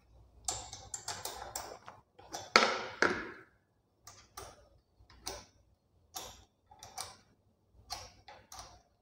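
Allen key clicking and scraping in the cable anchor bolt of a bicycle V-brake as it is fitted and turned to loosen the brake cable: a quick run of clicks, a louder scrape a couple of seconds in, then single light ticks spaced about half a second to a second apart.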